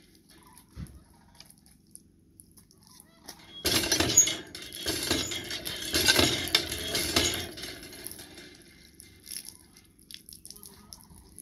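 Hand water pump being worked by its handle, then a gush of water pouring from the spout and splashing onto concrete for about four seconds before tapering off. A single low knock comes about a second in.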